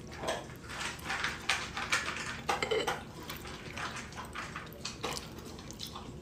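Fork clinking and scraping against a plate as a cake sample is cut and scooped up, a run of short, light clicks and scrapes.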